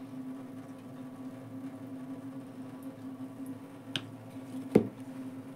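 A steady low hum, with two short knocks about four seconds in and just before the end, the second one louder.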